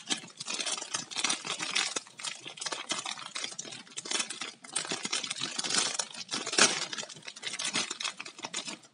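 Thin clear plastic wrapper crinkling as hands pull and peel it off a megaminx puzzle: a dense, continuous run of crackles, loudest about two-thirds of the way through.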